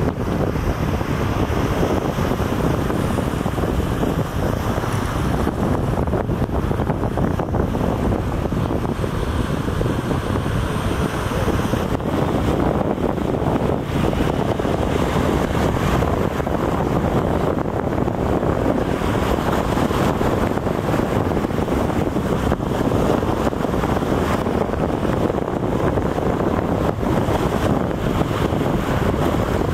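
Wind buffeting the microphone aboard a boat on open water, a steady rush of wind and water noise with no clear engine tone or distinct knocks.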